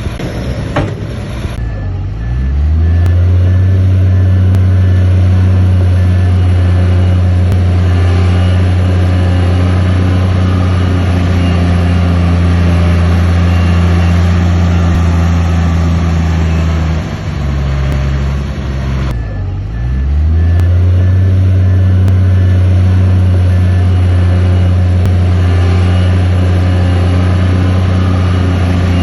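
Heavy diesel engine of an earthmoving machine running steadily under load. Twice its pitch dips and climbs back, about two seconds in and again around nineteen seconds, as it changes direction. Each time this is followed by a reversing alarm beeping for a few seconds.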